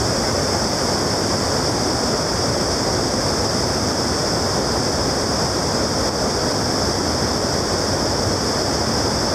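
Steady rush of water pouring over the stepped Pulteney Weir and churning in the white water at its foot, heard close to the falls.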